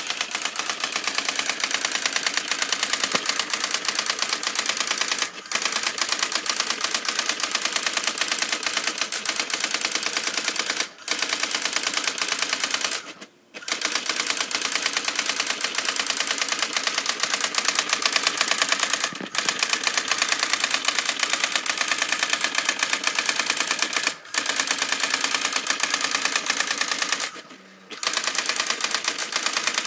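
Brother daisywheel printer printing: a rapid, continuous clatter of the print hammer striking the daisywheel characters onto the paper, broken by short pauses every five seconds or so between lines.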